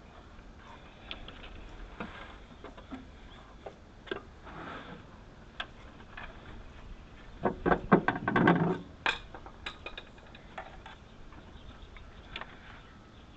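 Hand tools and small metal parts being handled: scattered clicks and light knocks, with a brief burst of clattering about two thirds of the way through.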